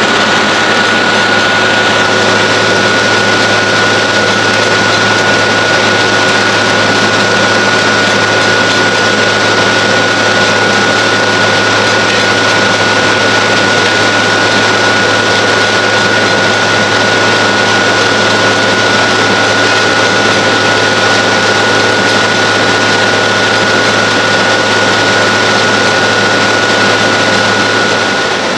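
Bandit Beast 2680T horizontal track grinder running, its 540 hp CAT C15 diesel engine at a loud, steady drone with a steady high whine over it.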